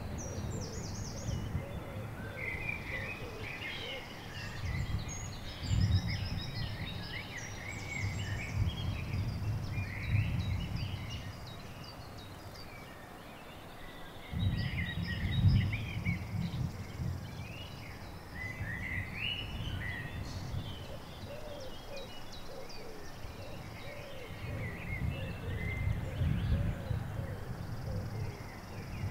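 Several birds singing and calling in spring woodland, many short chirps and trills overlapping, with a low rumbling noise that comes and goes in stretches.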